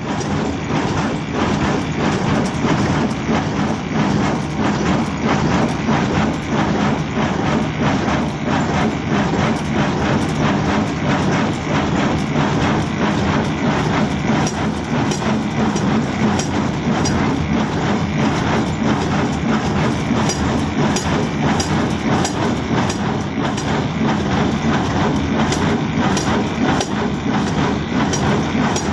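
Kubota small square baler running off a tractor, its plunger and knotter knocking over and over as it packs rice straw into bales, over the steady running of the tractor engine.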